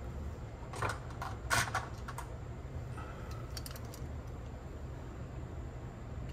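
Small clicks and taps of the plastic and metal parts of a Sony TCM-200 cassette tape transport being handled and fitted together by hand. There is a cluster of clicks about a second in and a few lighter ones a little before halfway.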